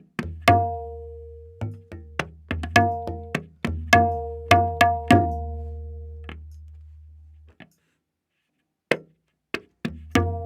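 Tabla playing a slow ektaal theka: ringing strokes on the right-hand drum tuned to A#, mixed with deep booming bass strokes on the left-hand drum that sustain and fade. After a pause of about a second, a few sparse strokes follow near the end.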